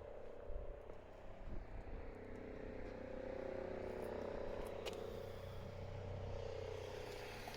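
Faint steady hum of a passing vehicle, swelling a little through the middle, with a single sharp click about five seconds in.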